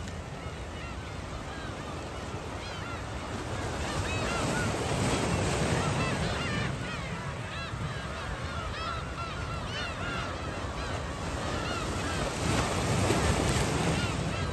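A large flock of black-tailed gulls calling, many short overlapping calls at once. The calling swells about four seconds in and again near the end, over a steady low rumble of wind and surf.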